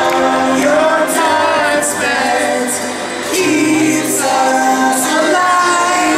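A song with a singer's voice over a bass line and regular cymbal ticks, played loud for dancing.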